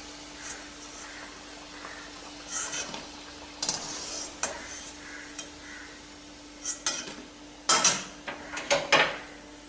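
A perforated steel skimmer scraping and clinking against a stainless-steel kadai as fried bread vadas are lifted out, over a faint sizzle of hot oil. The loudest scrapes come in a cluster about eight and nine seconds in.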